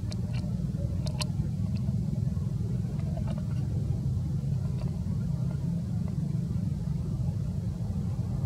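Steady low rumble of a running motor, with a few short sharp clicks in the first second or so.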